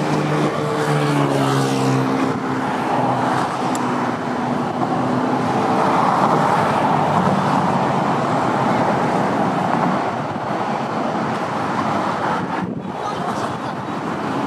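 Road traffic passing steadily, a continuous rush of tyres and engines, with the steady drone of a vehicle engine in the first few seconds.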